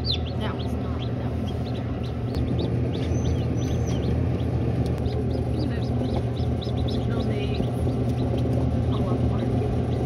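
Newly hatched chicks peeping in an incubator, short high cheeps that fall in pitch, coming in clusters. A steady low hum runs underneath.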